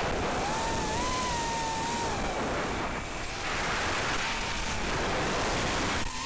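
FPV racing drone in flight: a steady rush of propeller wash and wind over the onboard camera's microphone, with the brushless motors' whine rising and falling in pitch with the throttle during the first two seconds.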